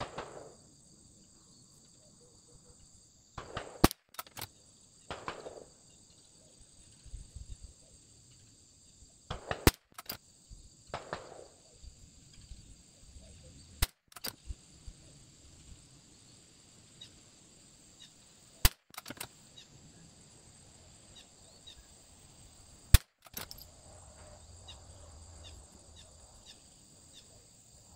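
Single shots from a Bergara BMR bolt-action .22LR rimfire rifle fired from a bench rest: six sharp cracks, one every four to five seconds, with quieter handling sounds between them.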